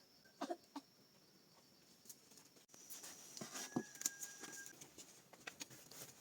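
Chickens clucking faintly in a few short calls over a steady high insect drone, with a held whistle-like note and a few light knocks a little after the middle.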